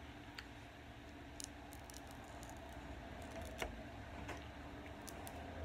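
Faint crackling clicks of a cooked shrimp's shell being peeled apart by hand, a few scattered sharp clicks with the loudest about two-thirds of the way through, over a low steady hum.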